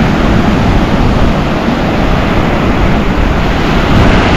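Ocean surf washing and breaking along the beach, with wind rushing over the microphone; a steady loud noise that swells a little near the end.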